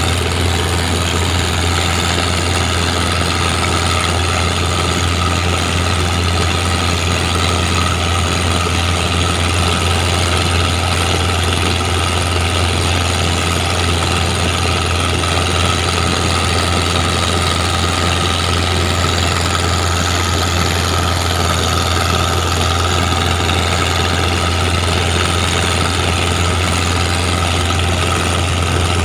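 A boat's inboard Mitsubishi 4D31 four-cylinder diesel, a converted car engine, running steadily at an even speed with a deep, unchanging drone.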